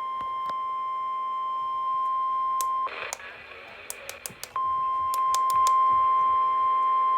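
Emergency Alert System attention tone ahead of a National Weather Service flash flood warning: one steady, single-pitched beep. About three seconds in it drops out for a second and a half, leaving hiss and sharp clicks, then comes back and holds.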